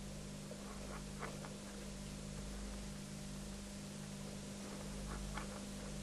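A few faint clicks and scrapes of a sharp knife cutting a round groove into a soft piece of rubber shoe sole, about a second in and again around five seconds in, over a steady low hum and hiss.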